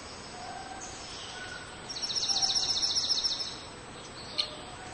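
A small bird giving a rapid, high chirping trill of about a second and a half, over faint outdoor background noise, with one sharp click near the end.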